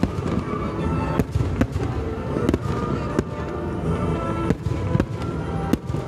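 Aerial firework shells bursting one after another, a rapid irregular string of sharp bangs with crackle between them. Music plays underneath.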